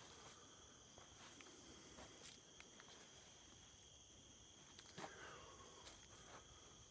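Near silence: a faint, steady high-pitched insect drone, with a few faint ticks.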